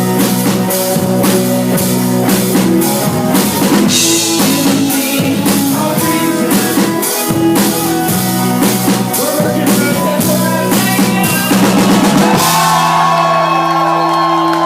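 Live rock band playing loudly, with a steady drum-kit beat under guitars, then ending the song about three-quarters of the way through on a held, ringing chord.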